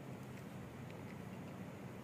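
Cat crunching dry kibble: faint, scattered chewing clicks over a low, steady background hum.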